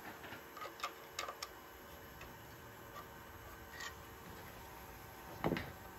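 Faint scattered clicks and ticks from a small block being handled on a wooden CNC spoil board, with a louder knock about five and a half seconds in.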